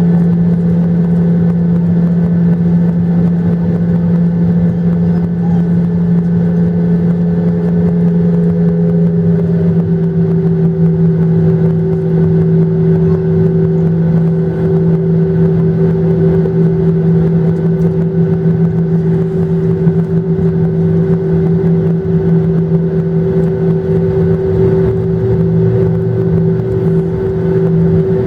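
Boeing 737-800's CFM56-7B jet engines running steadily, a loud, even drone with a low hum and a higher tone that dips slightly about nine seconds in.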